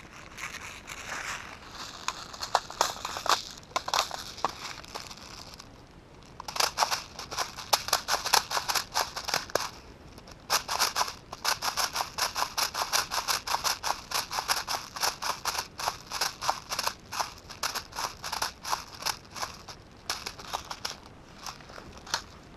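Footsteps crunching over dry ground and brush, settling into a steady brisk stride about six seconds in, after a few seconds of irregular rustling and snapping.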